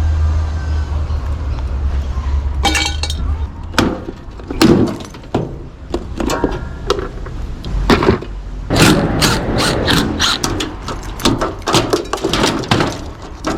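Washing machine parts being wrenched apart by hand: a run of sharp knocks, clinks and cracks of metal and plastic, busiest in the second half. A low hum runs under the first few seconds and then stops.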